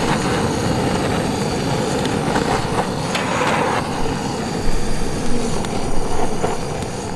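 Butane canister torch running with a steady roaring hiss as its flame is held against firewood to light a wood fire, with a few faint ticks.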